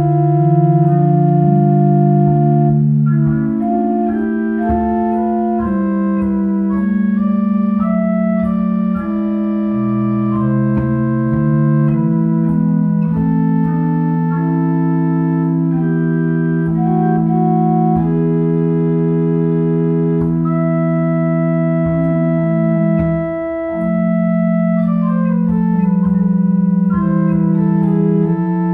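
Home-made chest organ with wooden principal pipes, sounding its Principale 8' stop, playing slow polyphonic music. Several voices hold long sustained notes and move in overlapping chords, with one short break in the sound about three-quarters of the way through.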